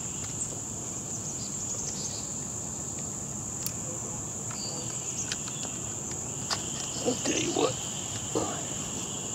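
Steady high-pitched insect chorus, with a few faint clicks and short low sounds from the rifle being handled.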